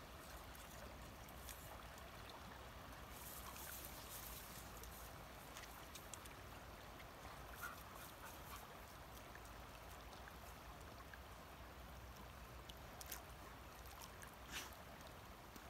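Faint ambience of a river flowing, with a few soft rustles and clicks, two of them near the end.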